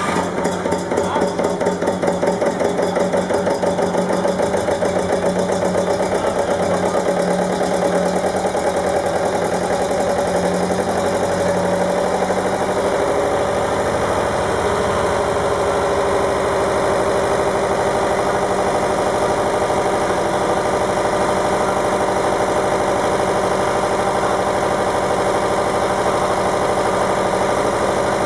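Vintage diesel engine catching and running up, pulsing unevenly for the first few seconds, then settling into a steady, even idle with a regular knocking beat.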